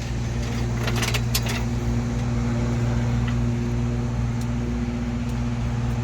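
LS-swapped V8 in a G-body Monte Carlo SS idling steadily, a low even hum, with a few light clicks about a second in.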